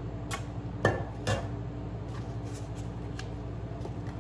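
A few sharp clinks and knocks as the metal air fryer basket and its parts are handled, the loudest about a second in, followed by a few lighter ticks, over a steady low hum.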